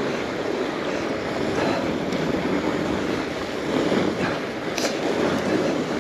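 Bicycle tyres rolling steadily downhill on a groomed trail, mixed with wind rushing over the microphone, with a brief sharp rattle of the bike about five seconds in.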